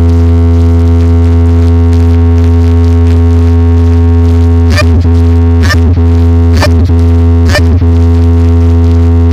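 Giant DJ box speaker stack playing a loud, steady, deep bass drone with a buzzing stack of overtones. From about five seconds in, a short sharp hit cuts through it about once a second.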